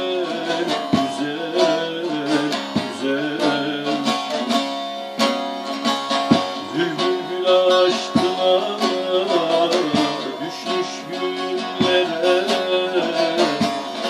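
Bağlama (Turkish long-necked saz) played with a plectrum: a folk melody picked over quick, rhythmic strokes across the strings.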